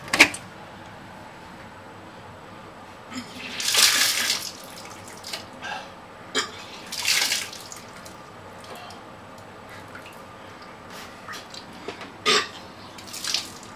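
A man vomiting into a toilet bowl, the vomit splashing into the water in two loud bursts about four and seven seconds in, with a few sharp knocks in between.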